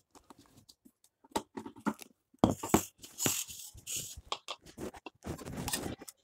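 Kitchen handling sounds of a Preethi mixer-grinder jar after grinding, with the motor off: irregular clicks and knocks of the jar and lid, a sharp knock and scraping about two and a half seconds in, and more scraping near the end.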